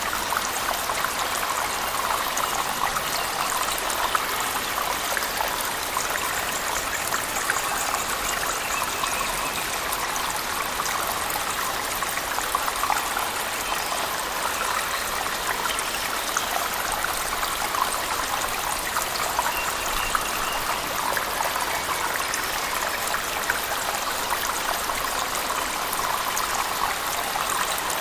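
Steady rush of a waterfall in a cave mixed with heavy rain, full of fine spattering drops, unchanging throughout.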